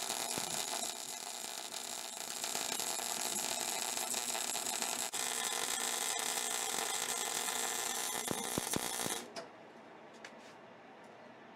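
Wire-feed welder arc crackling steadily while a patch plate is welded over a cracked car body sill, stopping abruptly about nine seconds in.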